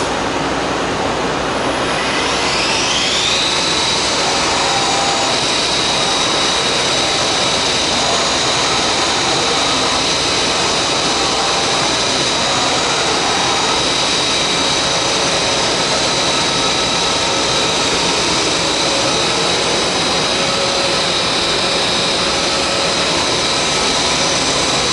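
Hurco BMC3017 CNC vertical machining center's spindle spinning up: a whine rises for about a second and then holds at a steady high pitch over a constant machine hiss.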